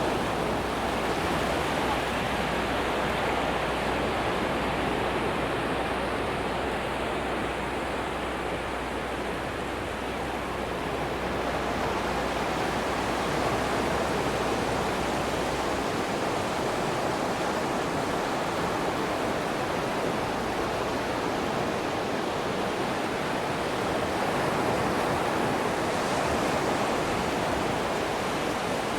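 Ocean surf on a sandy beach: a steady rush of breaking waves that swells gently in level.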